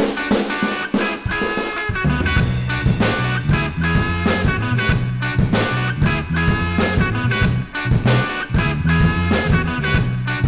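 Background music with a steady beat; a bass line comes in about two seconds in.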